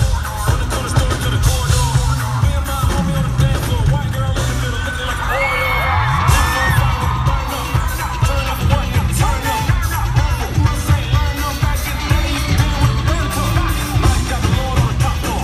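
Live pop band and female singer performing loudly, with a steady drum beat and a heavy, booming bass, heard from inside the concert crowd.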